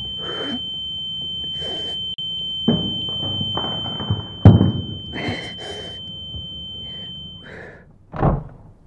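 Drum kit struck in scattered hits, cymbal crashes and heavy drum thumps with the loudest about halfway, under a steady high-pitched ringing tone like tinnitus, standing for the drummer's failing hearing. The ringing stops near the end, followed by one low thump.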